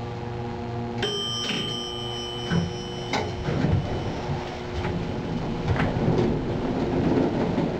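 Elevator arrival chime: a single bell-like ding about a second in that rings and fades over a few seconds. The doors then slide open, with shuffling and a few footsteps as one rider steps out.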